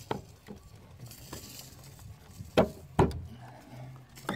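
Clicks and knocks of a new hatch gas strut being handled and lined up on its lower mounting stud, with two loud sharp clicks in quick succession about two-thirds of the way in.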